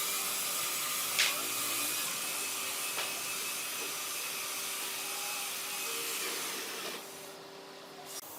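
A power tool running steadily on wood with a hissing sound, with two short knocks, cutting off about seven seconds in.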